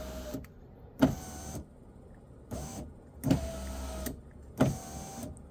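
2012 Kia Sportage power window motor running in short bursts, five times, each starting with a click, as the window switch is tested and works again after its burnt contacts were cleaned.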